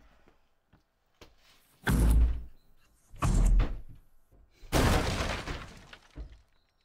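Three heavy crashing blows about a second and a half apart, each with a deep thud. The third is the longest, a crash with breaking and shattering that dies away over more than a second.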